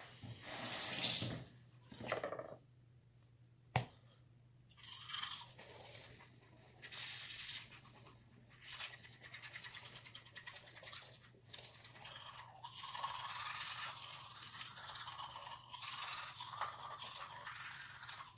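Teeth being brushed with a toothbrush: a steady scrubbing from about five seconds in, after a few short rustles and one sharp click near four seconds.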